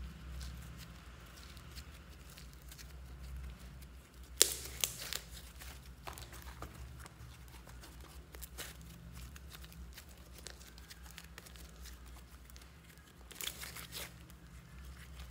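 Sticky slime being kneaded and pressed by hand, giving small crackles and clicks throughout. There are two louder spells of sharp crackling, about four seconds in and near the end.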